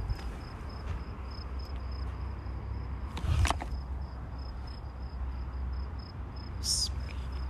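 A cricket chirping steadily, a thin high pulse about three times a second, over a low rumble. A brief scuff comes a little over three seconds in, and a short high squeak comes near the end.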